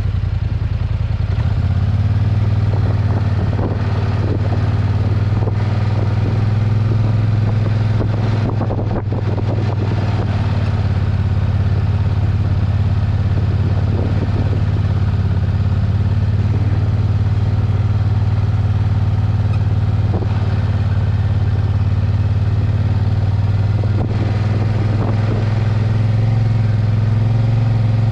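ATV engine running close by at a steady, even speed, with a few short knocks and rattles over it.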